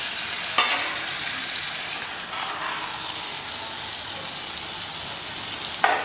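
Whole katla fish frying in oil and masala gravy in a wide pan, sizzling steadily. A metal spatula knocks against the pan about half a second in and again near the end.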